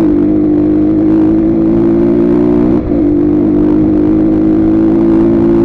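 Motorcycle engine running at steady revs under way, dipping briefly about three seconds in and picking back up.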